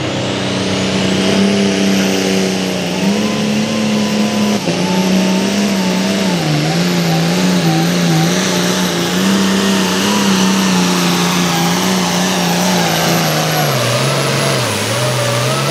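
Turbocharged 466 cubic-inch diesel pulling tractor running at full power under load, hauling a weight-transfer sled. A high turbo whistle climbs over the first couple of seconds and holds above the engine note. The engine pitch wavers midway and drops about two seconds before the end as the sled's load pulls the engine down.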